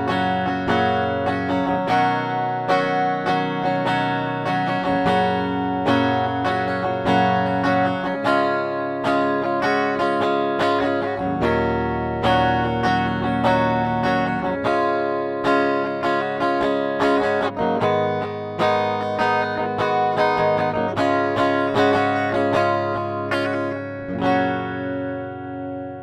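McLorence JP100 electric guitar played clean through its bridge humbucker: a continuous passage of picked notes and chords. The playing stops a couple of seconds before the end and the last notes ring out and fade.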